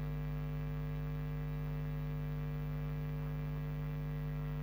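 Steady electrical hum: several constant tones held without change, with nothing else over them.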